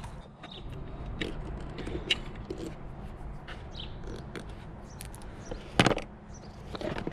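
Irregular small clicks and taps of a tool on the seat bolts and the motorcycle's parts as the bolts are loosened, with one louder knock near six seconds in.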